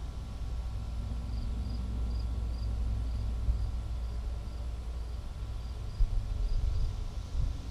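Wind buffeting a GoPro's microphone as a steady low rumble, gusting harder about six seconds in. A faint high chirp repeats about twice a second through the middle.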